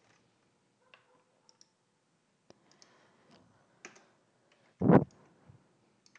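Scattered clicks from a computer mouse and keyboard while text is selected, copied and entered at a computer. A single louder, low thump comes about five seconds in.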